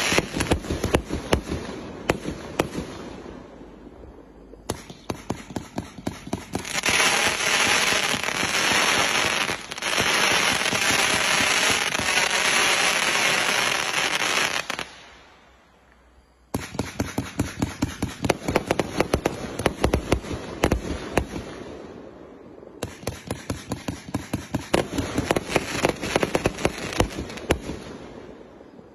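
A 1.2-inch, 268-shot fireworks cake firing: a fast run of launch thumps and bursts. From about a quarter of the way in, the bursts merge for several seconds into a dense, unbroken crackle. After a brief lull about halfway through, the rapid shots resume and go on to the end.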